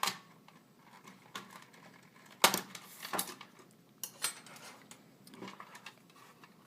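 Metal clicks and clinks of a Polaroid 545 film holder being taken apart by hand, its parts knocking as they come apart and are set down. The clicks are scattered and separate, the loudest about two and a half seconds in.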